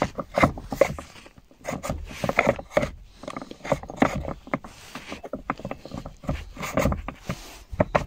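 Kia Cee'd centre armrest lid being rocked back and forth by hand to seat it on its slide: a run of irregular knocks and clicks with rubbing in between.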